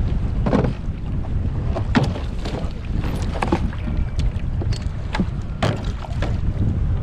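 Wind rumbling on the microphone aboard a fishing boat, with scattered knocks and clicks on top.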